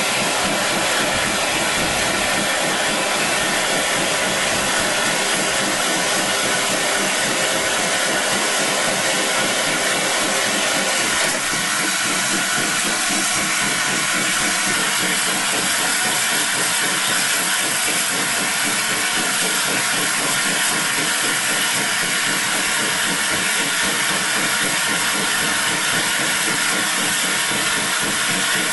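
Loud, steady hiss of steam escaping from the BR Standard Class 8 steam locomotive 71000 'Duke of Gloucester' standing in a platform, the lower part of the hiss thinning slightly about eleven seconds in.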